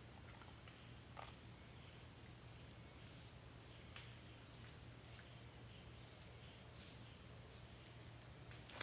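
Faint, steady high-pitched trilling of crickets.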